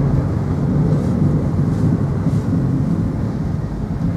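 Steady engine and road rumble of a moving car, heard from inside the vehicle.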